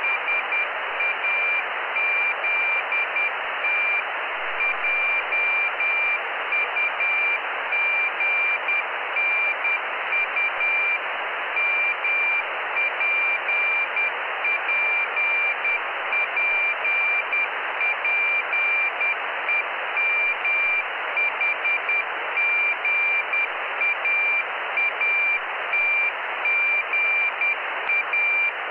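Morse code (CW) telemetry beacon from the Jugnu cubesat heard through a radio receiver: a single high tone keyed on and off in dots and dashes over steady receiver hiss.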